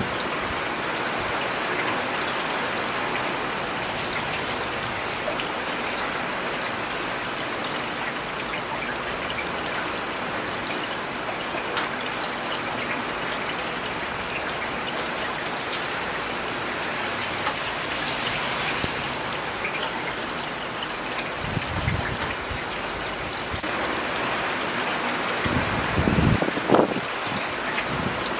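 Steady rain with individual drops ticking sharply here and there. Two short low swells break through, one about three-quarters of the way in and a louder one near the end.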